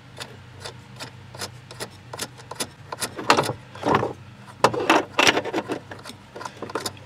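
Small metallic clicks and scrapes as a locking nut is spun by hand onto the threaded adjuster rod of an emergency brake cable, with a cluster of louder knocks and scrapes from about three to five seconds in.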